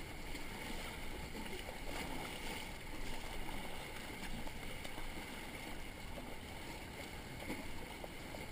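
Fast river water rushing and splashing around an inflatable whitewater raft, a steady wash of noise.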